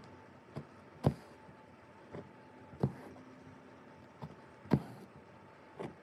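Embroidery needle punching through cotton-linen fabric, with stranded cotton floss drawn through after it. The sharp taps come in pairs, about one pair every two seconds. The louder tap of each pair sometimes carries a brief rasp of thread.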